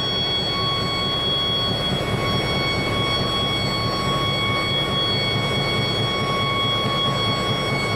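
Train running steadily: a continuous low rumble with a steady whine of several high tones over it.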